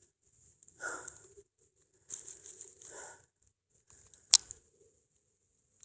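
Dry leaves and clothing rustling in two short spells, then one sharp, loud crack about four seconds in.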